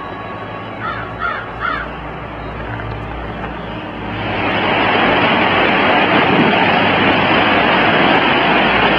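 Three short, harsh bird calls, then from about four seconds in a loud, steady rushing noise of the flooded James River's water takes over.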